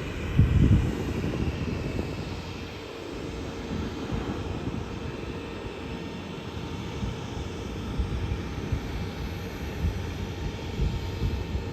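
Raytheon Hawker 800's twin Garrett TFE731 turbofan engines running as the jet lands: a steady jet rumble with a faint, steady whine. A brief louder low rumble comes about half a second in.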